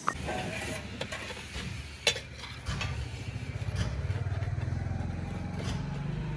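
A small engine running at idle with a low, steady throb that grows louder about two and a half seconds in, with a sharp click about two seconds in.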